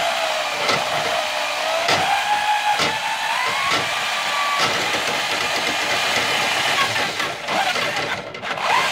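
Drill spinning a 1/4-inch drum drain snake fed down a laundry drain standpipe and through the P-trap: a steady motor whine with hiss, its pitch wavering and rising over the first few seconds. Light clicks come about once a second during the first half.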